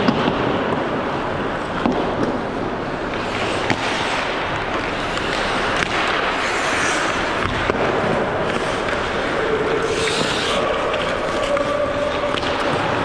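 Pickup ice hockey in a rink: steady scraping of skate blades on the ice, with a few sharp clacks of sticks and puck.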